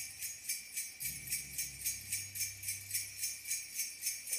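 Background music led by jingle bells shaking in a steady beat, about four shakes a second, with low bass notes coming in about a second in.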